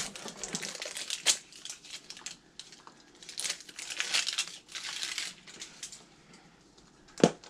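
Plastic packaging crinkling and rustling with small clicks as toy blind capsules are opened by hand, with one sharp knock about seven seconds in.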